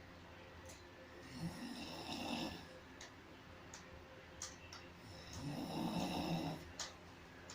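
A person snoring: two long snores about four seconds apart, each a rasping breath, with a few short sharp clicks between them.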